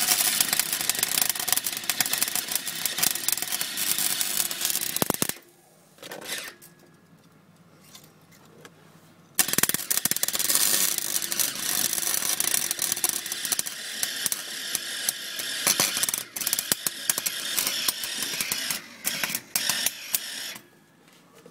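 Electric arc welder crackling and sizzling as a weld is laid, in two long runs: one of about five seconds, then after a pause of about four seconds another of about eleven seconds.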